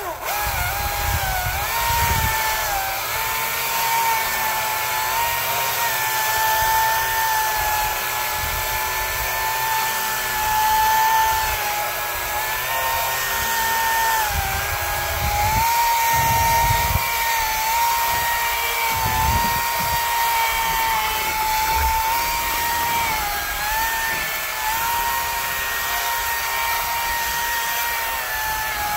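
A power tool's motor running at high speed with a steady whine, starting suddenly; its pitch dips briefly several times as it takes load, as when cutting into the palm.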